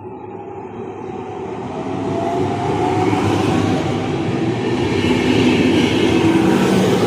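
Train approaching and passing through a station, its rumble and rail noise growing louder over about three seconds and then holding steady and loud.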